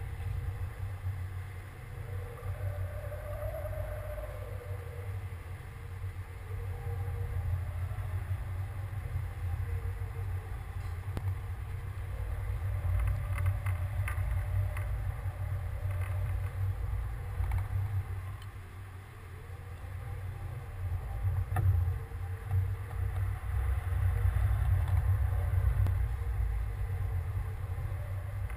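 Wind buffeting the microphone of a camera on a rising weather-balloon payload: an uneven low rumble, with a few small clicks and knocks from the rig.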